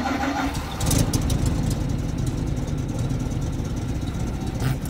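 Military half-track's engine running just after its first start, getting louder about a second in as the carburetor linkage is worked by hand.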